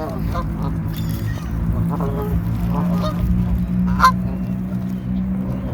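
Canada geese honking repeatedly while feeding, a string of short calls with one louder honk about four seconds in, over a steady low hum.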